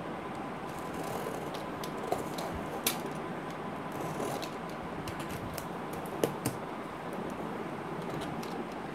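A parcel being opened by hand: scattered scratches, crinkles and small clicks of packaging, with sharp taps about two, three and six seconds in, over a steady background hiss.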